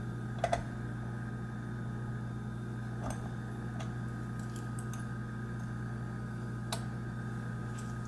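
A few faint metallic clicks as the hinged glass-fronted cover of an antique time lock's movement frame is handled and swung open, about half a second in, around three seconds and near seven seconds, over a steady low hum.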